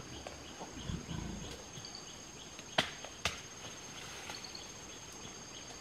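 Rainforest insects droning in a steady high-pitched hum, with a brief low rumble about a second in and two sharp snaps close together about three seconds in.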